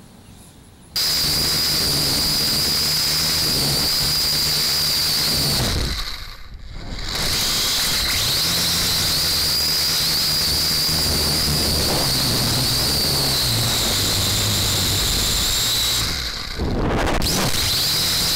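Small quadcopter drone's motors and propellers heard through the drone's own onboard camera: a loud, steady high-pitched whine with hiss, cutting out briefly twice, about six and sixteen seconds in.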